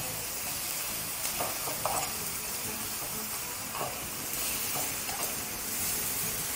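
Bacon slices sizzling in a hot frying pan as a steady hiss, with a few light clicks of metal tongs against the pan as the slices are turned over.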